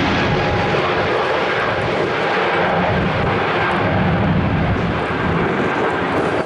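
Boeing 777's twin jet engines at high power on departure: a loud, steady roar with a few faint whining tones in it.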